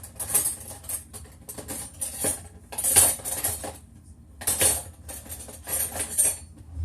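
A utensil scraping and clinking against a dish in about five quick, rasping strokes, like icing being scraped from a bowl.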